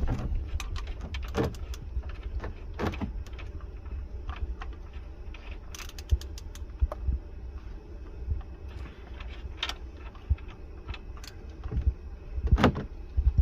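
Scattered clicks and clinks of hand tools at work on the car, irregular rather than in a steady rhythm, over a steady low hum.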